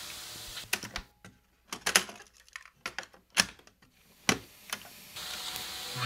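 A pause in the music holding about a dozen irregular sharp clicks and taps over a few seconds, with faint hiss before and after them and near silence between.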